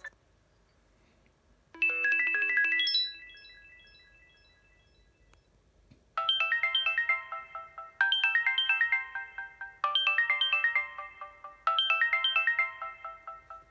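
Preloaded ringtones of a Samsung GT-E2600 mobile phone. About two seconds in, a short chime of quickly rising electronic notes plays and fades. After a pause, a quick synthesized melody phrase plays four times over.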